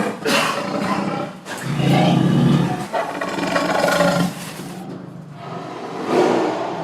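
A tiger roaring in a series of rough, loud roars one after another, with a brief quieter lull about five seconds in before another roar begins.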